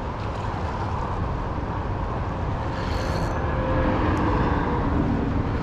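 Steady rushing of a fast-flowing river current, a continuous noisy wash.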